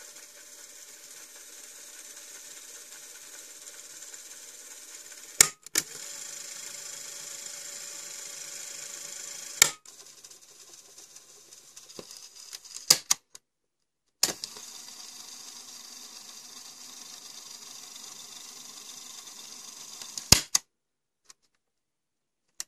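Walkman-type cassette tape mechanism whirring as its small motor winds the tape, stopped and restarted by several sharp clicks of its buttons and levers; the whirr breaks off briefly about halfway through and stops near the end.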